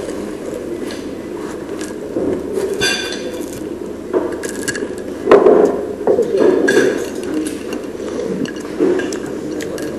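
Metal fork clinking and scraping against a ceramic plate as chips are speared, with scattered light clicks, a ringing clink about three seconds in and a louder knock a couple of seconds later.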